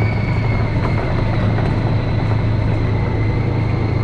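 A vehicle running steadily as it is driven, with a constant low hum and a faint steady high-pitched whine.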